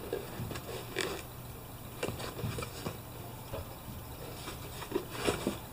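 A cardboard box being handled and turned over: faint scrapes and light taps scattered throughout, over a steady low hum.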